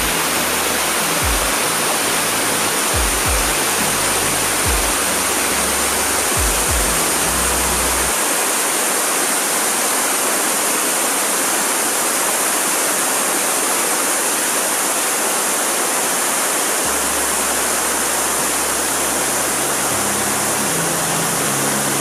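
Waterfall water rushing and splashing over rocks into a pool: a steady, dense hiss with no break.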